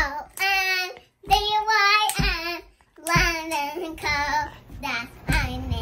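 A child singing a short jingle in several held, sliding phrases, with a low beat under the start of most phrases.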